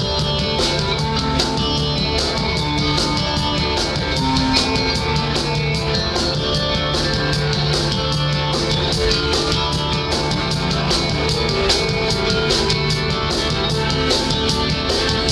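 Rock band playing an instrumental passage without vocals: a drum kit beating steadily under sustained guitar and bass chords.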